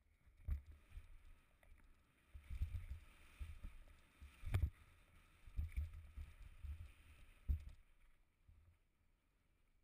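Mountain bike rolling fast down a bumpy dirt trail, heard through the rider's camera mount: irregular low thumps and rattles from the bumps, with a few sharp knocks, the loudest about halfway through, over a faint hiss of wind and tyres. It quiets near the end.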